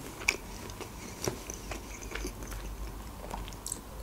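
Close-miked chewing with the mouth closed: soft, sparse wet mouth clicks and smacks.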